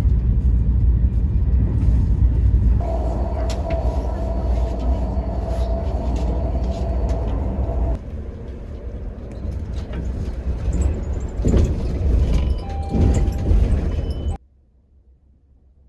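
Low, steady rumble of a moving motor vehicle, with a steady tone for several seconds and scattered light knocks; it cuts off suddenly near the end.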